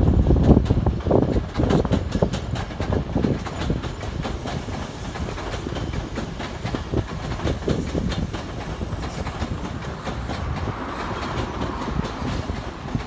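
A Toei 5300-series electric train passing close by, its wheels clicking rhythmically over the rail joints under a low rumble. It is loudest over the first few seconds, then eases off as the cars keep rolling past.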